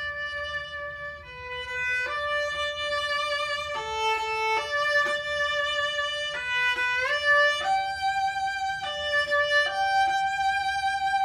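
Two violins playing a slow melody together, mostly in unison: sustained bowed notes that step up and down, with a short slide up to a higher note about seven seconds in.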